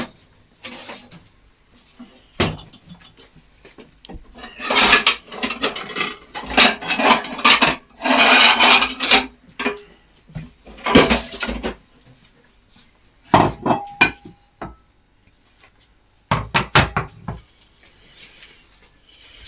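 Kitchen clatter of dishes and utensils: plates, a baking tray and wooden boards being handled and set down, with a scraper working, in several bursts of knocks and scraping.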